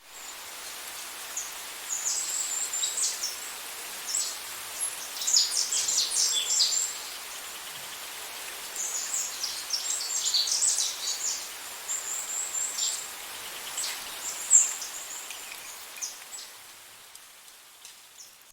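Small birds chirping in quick runs of short high calls over a steady hiss of outdoor background noise; the chirping thins out and fades near the end.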